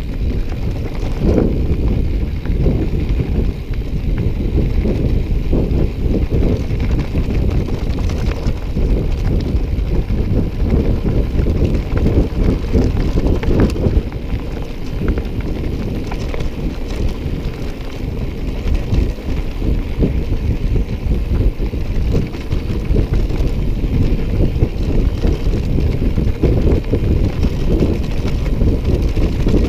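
Wind buffeting the microphone over the continuous rattle and clatter of a bicycle rolling over a rough track.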